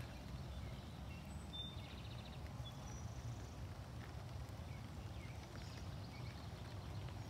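Outdoor garden ambience: a steady low rumble, with faint bird chirps scattered through and a short high trill about a second and a half in.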